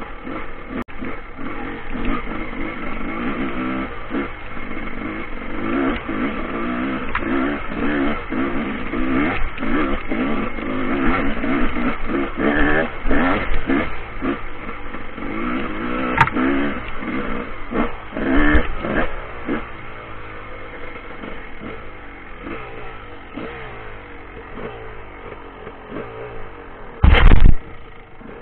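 Honda dirt bike engine revving up and down under load on a trail climb, with knocks from the bike jolting over the ground. The engine eases off in the last third, and a short, very loud thump comes near the end.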